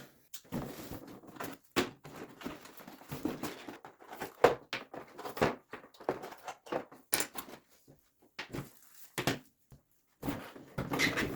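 Handling noises from unpacking a box: irregular knocks, clicks and rustles of cardboard and plastic packaging as items are taken out, with brief pauses.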